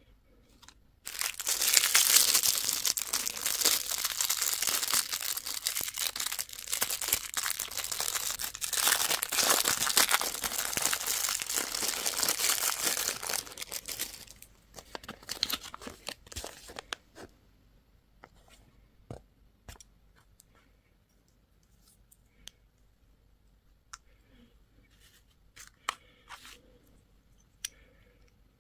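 Candy packaging being torn open and crinkled by hand, loud and continuous for about thirteen seconds, then only a few scattered small crinkles and clicks.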